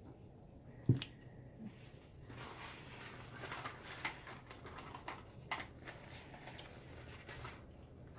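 A single knock about a second in, then about five seconds of rustling with small clicks, from things being handled at a dinner table.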